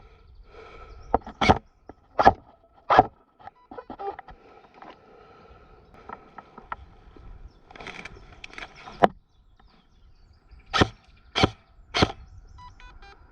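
Airsoft gun shots: sharp single cracks in groups of about three, each roughly two-thirds of a second apart, with pauses between the groups.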